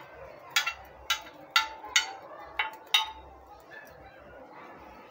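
A metal spoon clinking against a glass tabletop, six sharp taps in the first three seconds or so.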